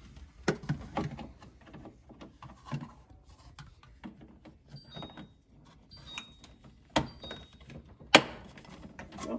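Plastic clicks, taps and rubbing as a new water filter cover is handled and fitted to an LG refrigerator's filter housing, with two sharper knocks about seven and eight seconds in.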